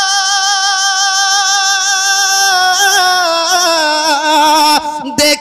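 A man singing a naat, holding one long high note with vibrato, then sliding down through an ornamented run, with a short break for breath near the end.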